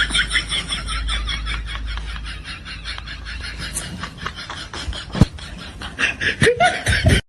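Stifled snickering laughter in quick repeated pulses, fading over the first few seconds. Later come three short sounds that drop sharply in pitch.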